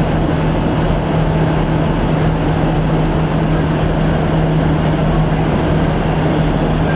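Class 50 diesel locomotive's English Electric 16-cylinder engine running with a steady, unchanging hum as the locomotive creeps slowly forward.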